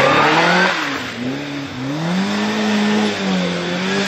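Rally car engine revving hard under load, its pitch climbing, dropping back and climbing again several times as the throttle is worked.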